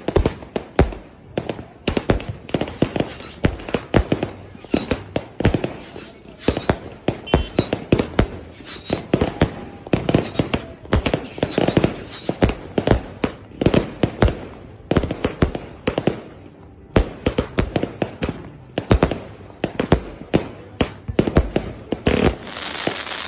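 Fireworks launching and bursting overhead in quick succession, a dense string of sharp bangs and crackles several times a second with no pause. A faint high chirp repeats through the first half.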